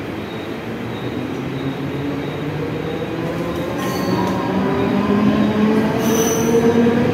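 Mumbai EMU electric local train pulling away along the platform, its traction motors whining in a pitch that rises steadily as it picks up speed, with the running noise growing louder. Two short high squeals from the wheels come about four and six seconds in.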